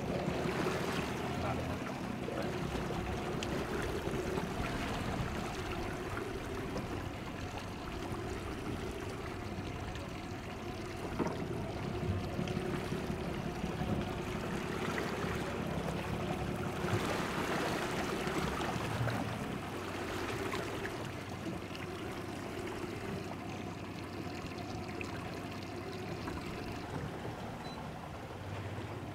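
Water rushing and splashing along a boat's hull over the low, steady hum of an idling Suzuki outboard motor.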